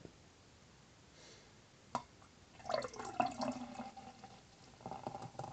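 Beer poured from a quart glass bottle into a glass beer mug: a click about two seconds in, then the beer glugging out of the bottle neck and splashing into the mug, pausing briefly and starting again near the end.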